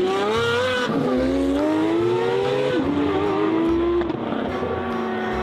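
Race car engine accelerating through the gears: its pitch climbs, drops at a shift about a second in and again near three seconds, then rises slowly and holds fairly steady.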